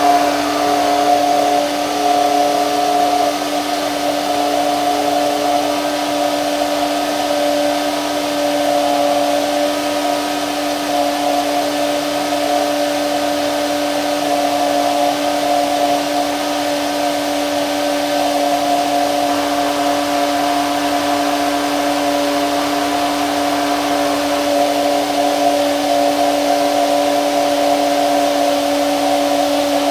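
Hand-held immersion blender running continuously at one steady speed in a plastic beaker, whipping egg and oil into mayonnaise as oil is trickled in; a steady motor whine that holds one pitch.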